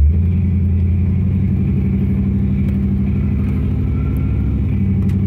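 LS V8 engine of a Chevy S10 pickup, heard from inside the cab, pulling away at light throttle. The engine note swells as the truck gets moving, then holds a steady low drone.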